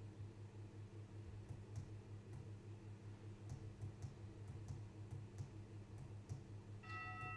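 Quiet church room tone with a low steady hum and faint scattered clicks. Near the end, an altar bell is struck once and keeps ringing, marking the blessing with the monstrance.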